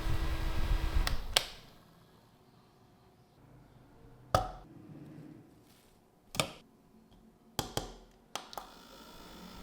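Small battery desk fan running with a steady hum that stops with a click about a second and a half in. Then a handful of separate sharp clicks and taps, the loudest about midway, two close pairs near the end.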